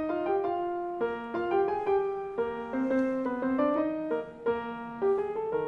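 Background piano music, a melody of distinct notes.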